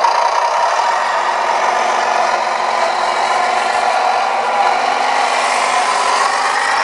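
Simulated diesel truck engine sound played through the small onboard speaker of an RC dump truck's sound module while the truck drives; a steady running note with a rattle in it.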